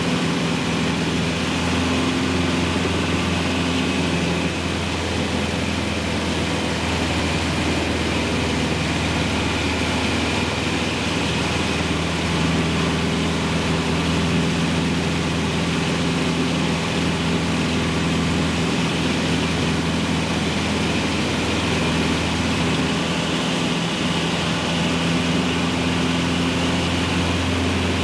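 Cessna 150's four-cylinder Continental O-200 engine and propeller heard from inside the cabin in flight: a steady drone whose pitch shifts slightly now and then.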